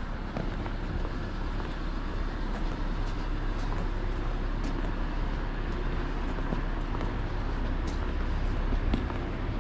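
Steady road traffic noise from cars on the street alongside, with a few faint ticks over it.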